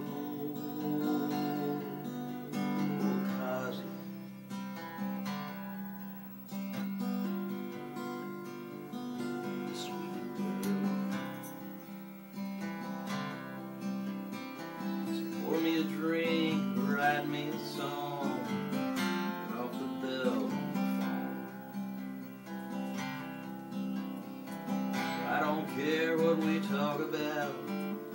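Steel-string acoustic guitar strummed and picked as a song accompaniment, with a man's singing voice coming in around the middle and again near the end.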